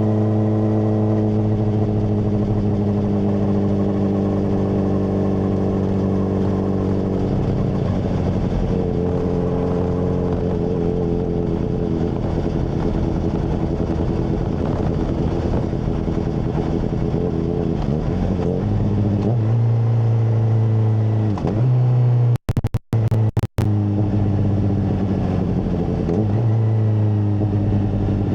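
Honda CBR600RR's inline-four through a MIVV full exhaust, ridden at steady revs at first, then with the engine note rising and falling with throttle and gear changes. The sound cuts out briefly three times a little past twenty seconds in.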